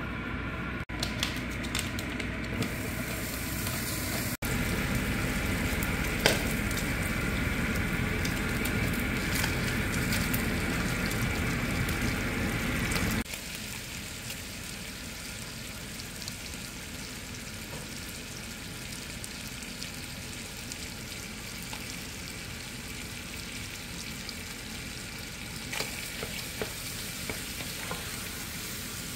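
Food sizzling in olive oil in a stainless steel pan. About 13 seconds in the sizzle cuts abruptly to a quieter one as raw ground sirloin and sausage go into the pan with the chopped aromatics and pancetta.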